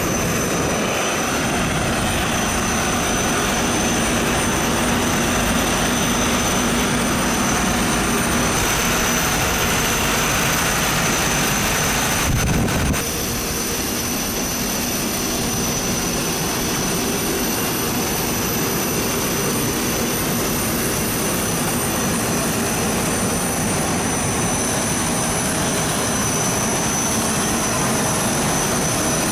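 Steady jet engine noise from an Airbus A350-900 heard inside the cockpit: a continuous rush with a low hum and thin, high-pitched whining tones. About twelve seconds in there is a brief disturbance, after which the sound is slightly quieter.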